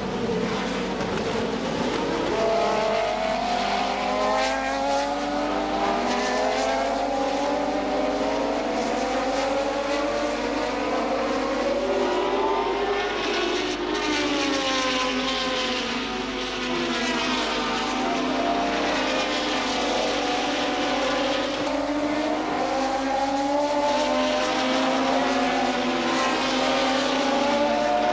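Several 1988 Formula One cars at speed, their engine notes overlapping and rising and falling in pitch as they accelerate, lift and pass by.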